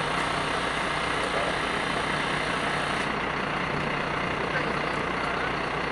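Fire engine running steadily at idle.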